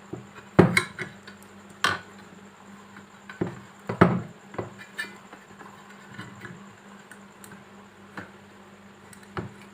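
Irregular metallic clanks and clicks from a bearing puller being worked on a ceiling fan shaft, pulling the old ball bearing off. The loudest knocks come about half a second, two seconds and four seconds in.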